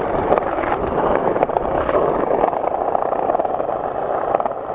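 Skateboard wheels rolling over brick pavers: a steady rough rumble, dense with small clicks.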